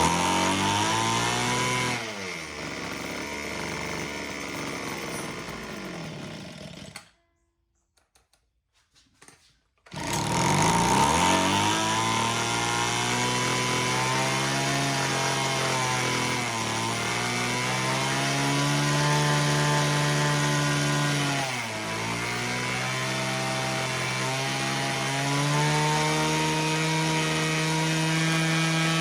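Homelite HT17 hedge trimmer's two-stroke engine running fast, then slowing and dying about seven seconds in. It restarts about three seconds later and runs with its speed rising and falling, with one brief dip near the middle. The engine won't stay at idle while its carburetor is being adjusted.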